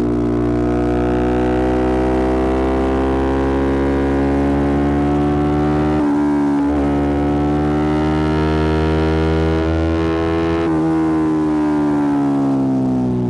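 Yamaha R125's single-cylinder four-stroke engine through a Black Widow aftermarket exhaust, running under steady throttle with its pitch climbing slowly. There is a brief dip about six seconds in, and the pitch falls away near the end as the engine slows.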